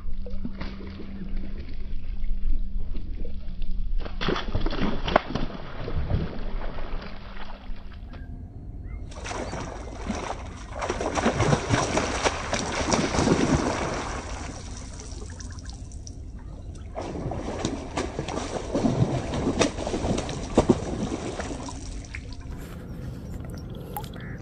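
Hooked rohu splashing at the water surface as it is played on a fishing rod, in several spells that start and stop abruptly, with wind rumbling on the microphone throughout.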